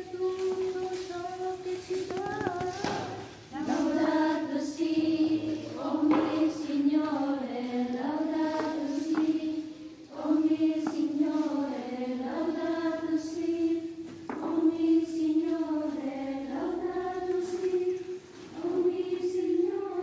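A choir of high voices singing a slow melody, one tune line with notes held for a second or two.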